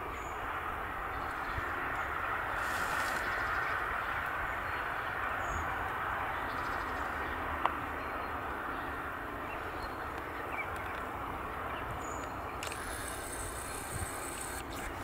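Steady outdoor background noise with no clear birdsong, a single sharp click about halfway through, and two brief bursts of high hiss.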